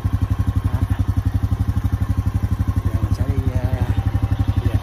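Vehicle engine idling, a steady fast low pulse that holds even throughout.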